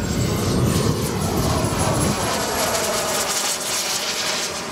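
Large radio-controlled scale Avro Vulcan jet model flying past: a steady rushing jet sound with a thin high whine that rises in pitch over the first two seconds. The deep rumble fades after about two and a half seconds while lower tones slowly fall.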